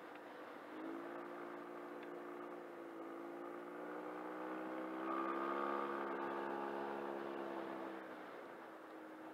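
Yamaha TMAX 500 maxiscooter's parallel-twin engine running under way. The engine note rises about a second in, gets louder around the middle, and falls back shortly before the end.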